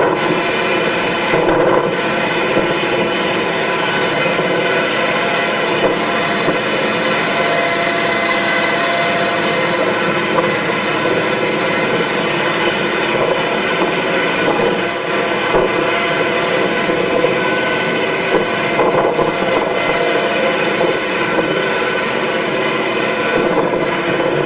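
Farm machinery running steadily: an engine-driven machine with a constant hum of several fixed tones over a noisy rumble, never letting up.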